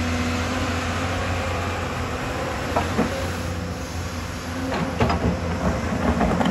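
Hyundai crawler excavator's diesel engine running steadily, with a few sharp clanks and knocks in the second half as the bucket is swung round and lowered onto the dirt.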